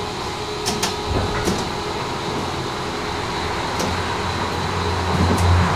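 Tram running sounds from on board, with a steady hum, a few sharp clicks and knocks in the first four seconds, and a low rumble that grows louder near the end.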